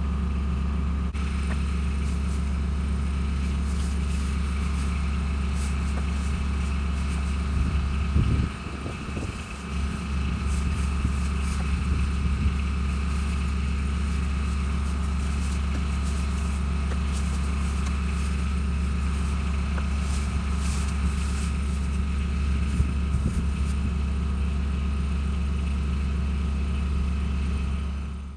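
An engine running steadily, with a brief drop and change in its note about nine seconds in.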